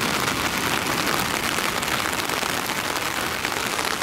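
Heavy rain falling steadily, a dense even patter of drops.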